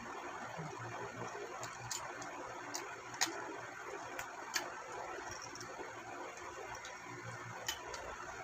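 Scattered sharp clicks and taps from handling and fitting the parts of a ring light kit, six or so irregularly spaced, over a steady background hiss.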